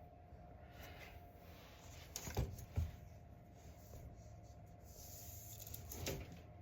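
Two sharp knocks close together, then a softer click, against a faint steady hum in a small room.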